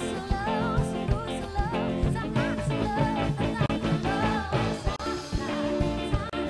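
Live band music: a woman singing into a microphone with wavering held notes, backed by drums, electric bass and keyboards.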